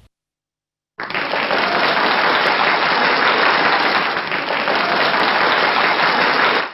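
Crowd applause, steady and loud, from a pre-recorded clip. It starts abruptly after about a second of dead silence and cuts off sharply near the end.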